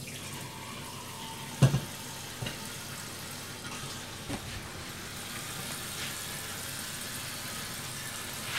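Hot water trickling steadily from a kettle into a pour-over coffee dripper, with one sharp knock about a second and a half in and a few small clicks later.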